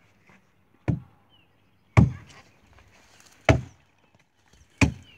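Axe chopping into a tree trunk: four heavy blows into the wood, one every second or so.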